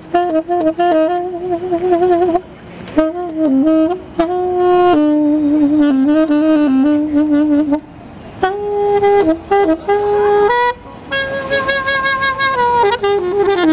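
A solo saxophone playing a slow melody of long held notes, in phrases broken by brief pauses for breath.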